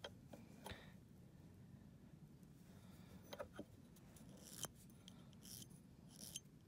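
Faint, short scrapes of a glass nail file on a dog's claw: a few quick strokes in the second half, among small clicks.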